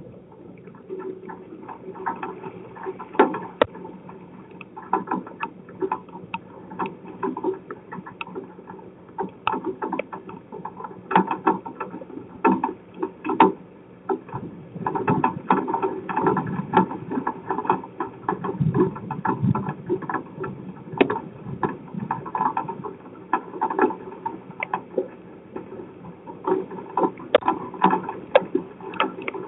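Storm rain pattering, with a steady wash of noise and many irregular sharp taps throughout.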